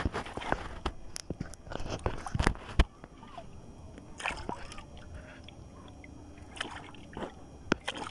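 Water sloshing and splashing against the hull of a small outrigger boat, with a busy run of sharp knocks and clicks in the first three seconds before it settles to a softer lapping with a few short splashes.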